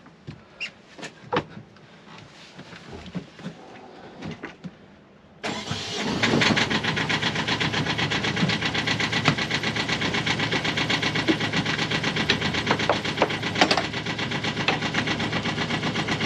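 Sailboat's freshly rebuilt inboard engine starting suddenly about five seconds in, then running steadily with a fast, even beat. Before it starts there are only a few light clicks and knocks.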